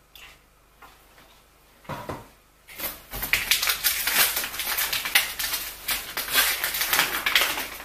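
Loud, dense crinkling and rustling of packaging, such as a paper or plastic bag being opened and handled, starting about three seconds in after a few faint knocks.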